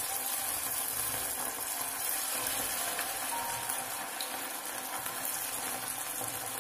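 Sabudana vadas deep-frying in hot oil in an iron kadhai: a steady sizzling with fine crackling as the oil bubbles around them.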